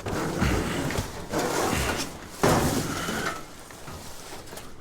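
Junk being dragged and shifted about in a dumpster, in three bursts of scraping and sliding over the first three seconds or so.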